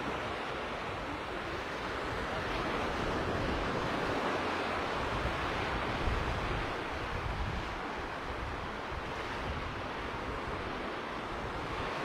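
Small sea waves washing onto a sandy shore in a steady wash, with wind buffeting the microphone in low rumbling gusts.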